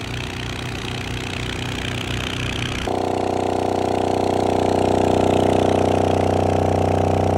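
DD Audio 508e 8-inch subwoofer playing a low bass tone at long cone excursion, heard as a loud, buzzy drone. About three seconds in it turns steadier and louder.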